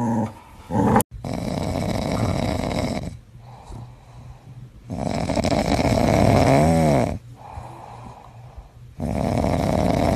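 A pit bull asleep on its back with its mouth open, snoring loudly: three long snores about four seconds apart, with quieter breathing between them.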